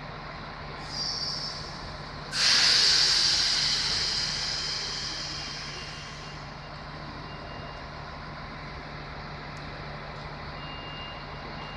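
Compressed air venting from a stopped passenger train: a short hiss about a second in, then a sudden loud blast of air about two seconds in that fades away over some four seconds. A steady low hum runs underneath, and a few faint high beeps come in the second half.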